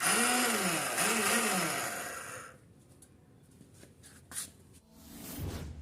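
Motorcycle electric starter pressed twice in quick succession. It whirs and grinds over about two and a half seconds, each press rising then falling in pitch. A grinding noise like this is typical of a slipping starter one-way clutch.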